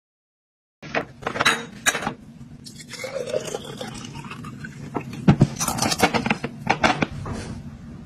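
Glass jars clinking and knocking as they are handled and set down, with liquid poured into a glass jar partway through, its pitch shifting as the jar fills.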